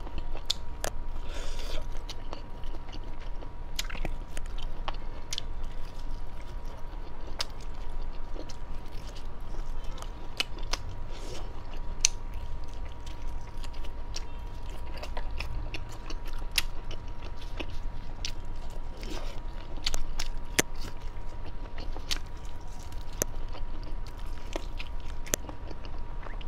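Close-miked chewing and biting of grilled meat skewers in chili oil, with many short sharp mouth clicks and smacks scattered throughout.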